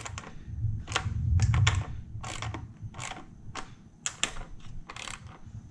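Hand socket ratchet clicking as it tightens intake manifold bolts, in separate sharp clicks at uneven spacing rather than a steady run.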